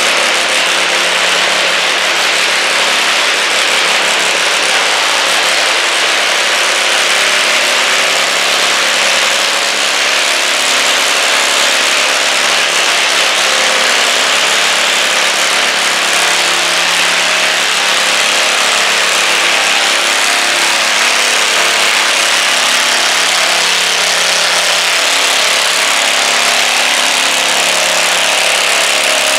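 Stock Simplicity garden tractor's engine running steadily under load as it drags a weight-transfer sled across a dirt track.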